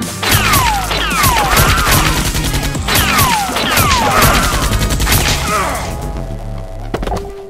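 Rapid gunfire sound effects over electronic music, with zaps sweeping down in pitch in two bursts; the shooting fades out near the end.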